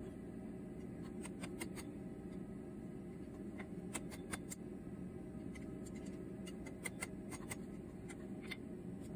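Light, scattered metal clicks and clinks of a small forged iron brooch ring and pin being handled with blacksmith's tongs against the anvil, over a steady low hum.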